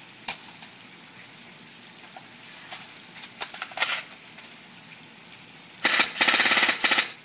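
Javelin M4 blowback BB gun firing: a single shot just after the start, a few scattered clicks and pops around three to four seconds in, then a fast string of shots lasting about a second near the end, the loudest part. It has a very high rate of fire.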